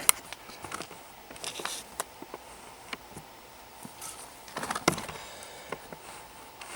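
Small plastic trackers and their packaging being handled: scattered light clicks, taps and rustles, with a busier run of clicks a little before the end.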